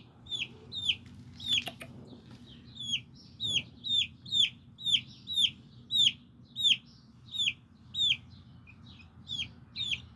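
A young chick peeping loudly and steadily, a run of short high peeps that each fall in pitch, about two a second: the insistent peeping of a chick taken from its brood-mates.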